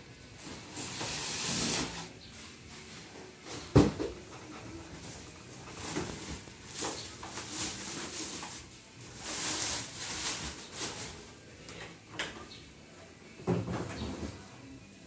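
Plastic packing wrap crinkling and cardboard rustling as packing is lifted out of a shipping box, with a sharp knock about four seconds in and a couple of softer knocks near the end.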